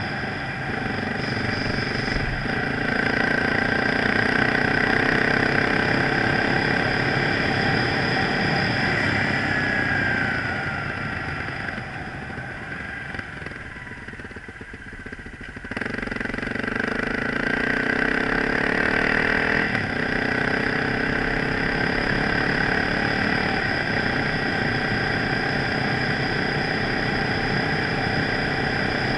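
Motorcycle engine running as the bike is ridden. The engine sound eases off about ten seconds in and stays quieter for several seconds, then comes back abruptly about sixteen seconds in and runs steadily again.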